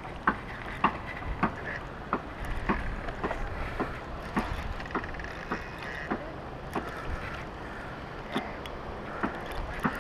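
Spinning reel being cranked on a rod: a string of short, light clicks, roughly two a second, over a low steady rumble.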